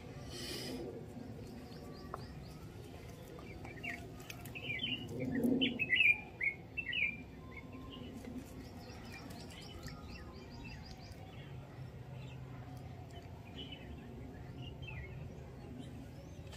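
Small birds chirping, with a flurry of short high chirps about four seconds in and a few fainter ones later.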